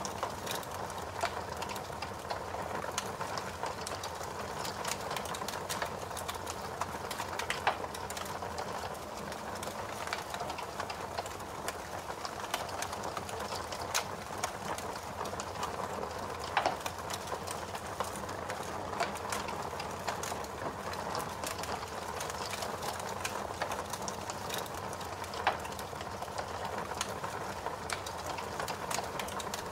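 Fire crackling: a steady hiss with sharp pops at irregular intervals.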